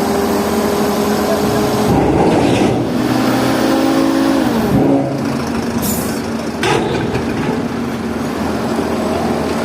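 Diesel engines of heavy recovery machinery running under load, revving up about two seconds in and dropping back near the middle, with two short hissing bursts a little after.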